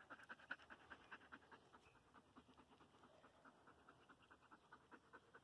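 Dog panting faintly with fast, even breaths, several a second, easing slightly partway through.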